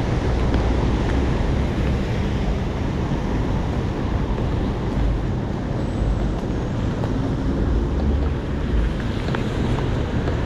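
Wind buffeting the microphone over the steady rushing of heavy hurricane rain, with an uneven low rumble that rises and falls in gusts.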